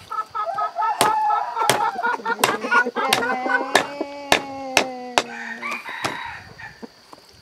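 A cleaver chopping a civet carcass on a wooden stump: about ten sharp chops over four seconds. Before the chops a chicken clucks rapidly, and a rooster crows one long call under them.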